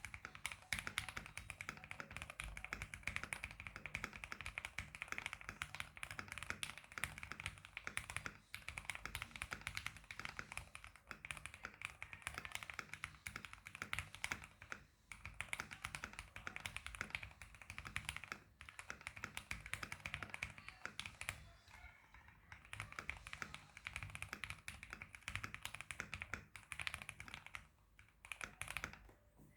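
Keychron Q1 Version 2 mechanical keyboard with SP-Star Meteor White switches in a steel plate, foam- and tape-modded, typed on quickly in a dense run of keystroke clicks. There are a few brief pauses, and the typing stops just before the end.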